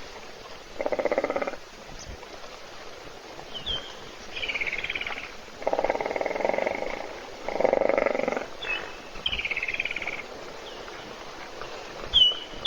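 Hippopotamus snoring: three loud rasping snores about a second, six seconds and eight seconds in, each a quick run of pulses. Shorter, higher falling calls sound twice between them.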